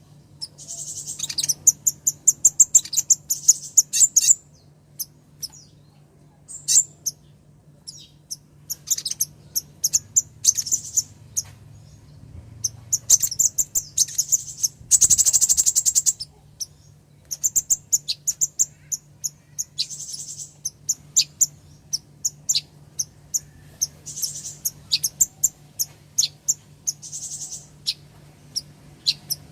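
Female sunbird calling: bursts of rapid, very high-pitched chirps, repeated over and over with short gaps. It is the female's call to a male, used as a lure to get a silent male singing.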